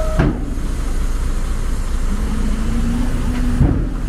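Hyundai crawler excavator's diesel engine running under hydraulic load as it works its arm and boom, with a steady low rumble. Its pitch drops sharply just after the start, and a steady hum comes in about two seconds in and falls away near the end.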